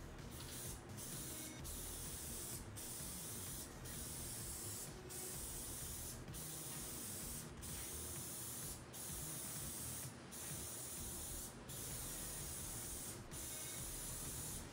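Aerosol spray adhesive hissing from the can in repeated passes of about a second each, with short breaks between passes, laying down a coat of glue.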